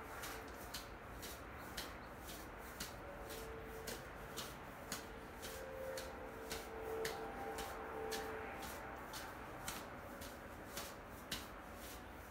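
Handheld Shaker training tube being circled around the head, its contents clicking sharply about twice a second in an uneven rhythm. A faint steady tone comes and goes through the first two-thirds.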